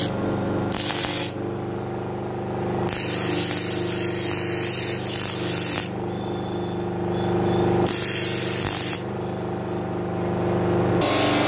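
Sewing machine running, with a steady motor hum and several louder spells of stitching that start and stop abruptly, the longest about three seconds.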